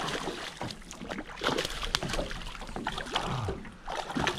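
A hooked bass thrashing and splashing at the surface beside a boat as it is scooped into a landing net: irregular splashes and sloshing water.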